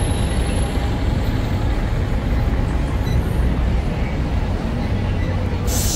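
Steady low rumble of heavy street traffic, with a short burst of hiss near the end.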